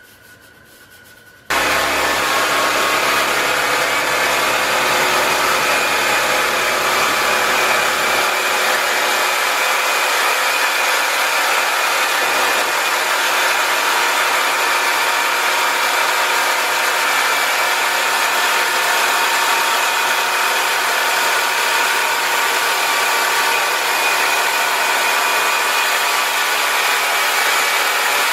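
Small gasoline engine of a portable bandsaw sawmill running steadily while the mill saws a hickory board, a loud even mechanical drone with a blade-cutting hiss. It starts suddenly about a second and a half in, after a faint brushing sound.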